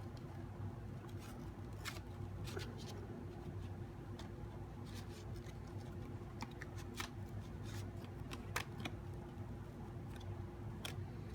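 Box panels being handled and slid together by hand to interlace them, giving scattered light rustles and clicks over a steady low hum.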